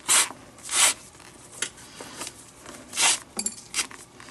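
Leather glove lace being drawn quickly through the lacing holes of a baseball glove's web: three sharp zipping pulls, two close together at the start and one about three seconds in, with lighter rubs of lace on leather between.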